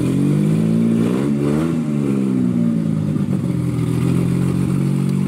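Car engine running, blipped once about a second and a half in, its pitch rising and falling, then settling to a steady idle.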